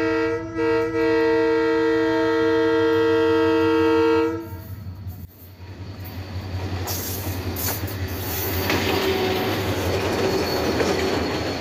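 Diesel locomotive GMU 30 4715 sounds a long multi-tone horn blast, broken twice briefly near the start, which stops about four and a half seconds in. Then the engine and wheels grow louder as the locomotive and its container wagons pass close by, the wheels clattering on the rails.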